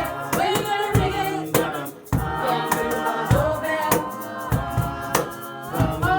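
A cappella vocal ensemble singing in close harmony over a steady beat of vocal percussion, with sharp strikes about every half second to two-thirds of a second.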